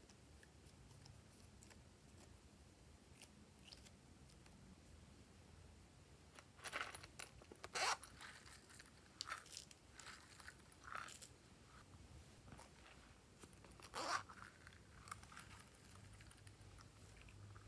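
Glossy slime being handled, giving a handful of short, sharp crackles, most of them between about seven and eleven seconds in and one more near fourteen seconds; before that it is almost silent.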